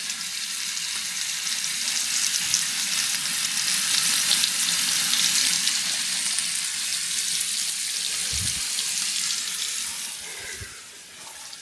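Steak sizzling as it cooks: a steady crackling hiss that drops off about ten seconds in.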